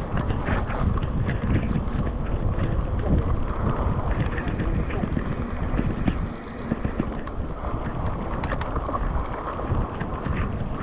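Wind buffeting an action camera's microphone with a steady low rumble, and a dense scatter of small clicks and knocks through it.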